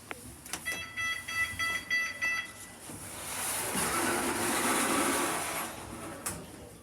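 Lift beeping in rapid short pulses for about two seconds, then the lift machinery whirring, swelling and fading over a few seconds, with a click near the end.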